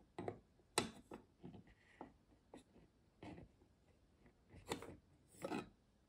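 Clear plastic magnetic one-touch card case halves being handled on a table: a string of light plastic clicks, taps and short scrapes, the loudest about a second in.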